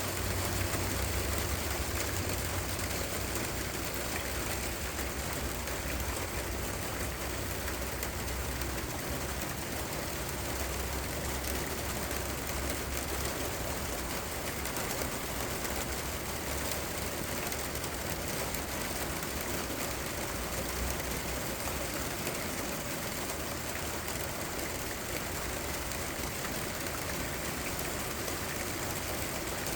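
Steady rain falling, an even hiss with no breaks. A low rumble runs underneath for the first twenty seconds or so, then fades out.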